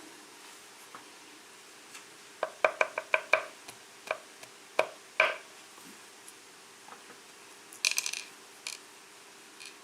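Small metal lock parts clicking and tapping as they are handled on a hard surface. A quick run of clicks comes about two and a half seconds in, a few single clicks follow, and a brighter metallic jingle comes near the end.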